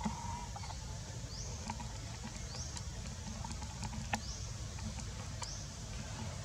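Forest ambience: a short, high, rising chirp repeats roughly once a second over a steady low rumble, with a few faint clicks.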